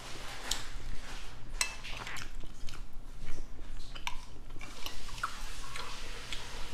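Metal spoon and fork scraping and clinking against a ceramic plate, several sharp clinks a second or so apart, with close-miked chewing between them.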